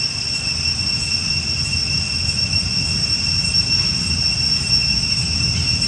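Steady outdoor background: an unbroken high-pitched drone made of two even tones over a low rumble, with no animal calls.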